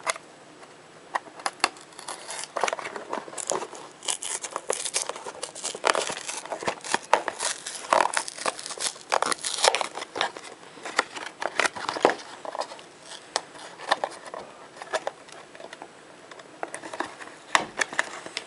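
A small cardboard box being opened by hand: card flaps and a paper insert rustling, crinkling and scraping in many short, irregular bursts, with some tearing.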